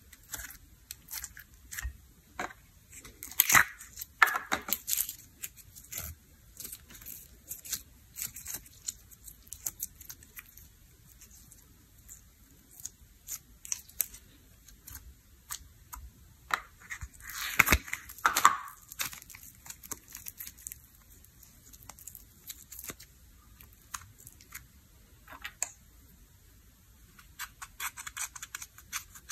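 Clear pink slime being squeezed, stretched and pulled apart by hand, giving irregular sticky clicks and pops, with louder clusters about four seconds in and again around eighteen seconds. Near the end, a brush scrapes powder out of an eyeshadow pan.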